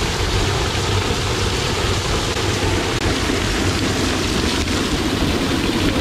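Steady rush of a small waterfall pouring down right at the camera, with water spraying and splashing onto it.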